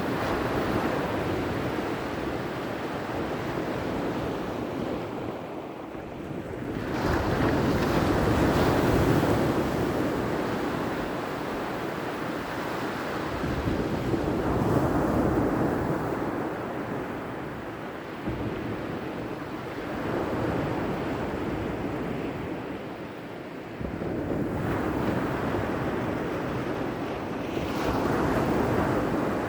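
Ocean surf: waves breaking and washing onto the shore one after another, the rush of water swelling and ebbing every few seconds.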